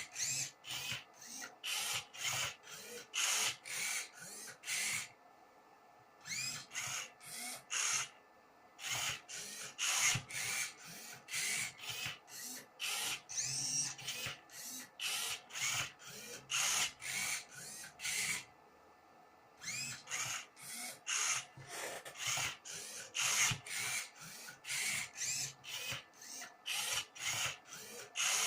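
The motors of a home-built Rubik's cube solving robot turn the cube's faces move after move: short whirring bursts of about two a second, each with a brief rising and falling whine, plus the clack of the plastic cube layers. The run is broken by short pauses about five, eight and eighteen seconds in.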